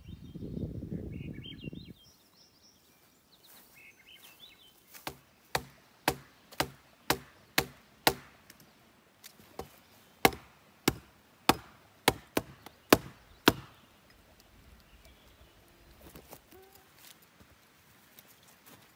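Hatchet chopping a dead branch lying on the ground: about fifteen sharp strikes, roughly two a second, with a short pause partway through.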